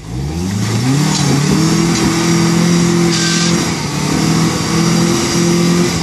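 Toyota pickup's engine revving hard under load as the truck climbs a rock ledge: the revs rise steeply in the first second, hold high with a brief dip in the middle, and fall away at the end. A short burst of hiss about three seconds in.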